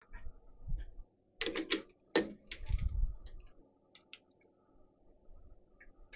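Metal clicks and knocks of a small threaded union being set into a lathe's four-jaw chuck and the jaws worked with a chuck key: a quick cluster of sharp clicks about a second and a half in, a low thud just after, then a few light ticks.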